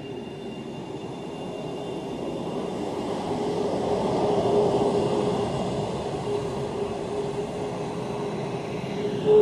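F-22 Raptor's twin Pratt & Whitney F119 turbofans running at taxi power as the jet taxis and turns away: a steady jet rumble with a humming tone and a thin high whine that fades early on. The noise grows louder over the first few seconds as the exhaust swings round, then holds.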